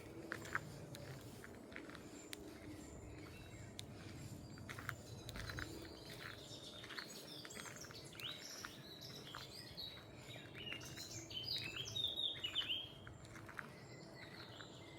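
Small songbirds singing and chirping, busiest and loudest about eleven to thirteen seconds in, over a steady low outdoor background with scattered short clicks.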